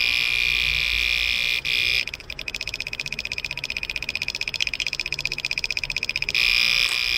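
Homemade relay buzzer, a 12 V relay switching itself on and off through its own contact and driving a small speaker, giving a loud steady high-pitched buzz. About two seconds in, with a capacitor held across the circuit, the buzz turns into a rapid pulsing chatter. Near the end it returns to the steady buzz.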